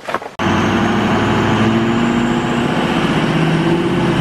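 Pickup truck under way, heard from inside the cab: a steady engine drone mixed with road noise, coming in abruptly about half a second in.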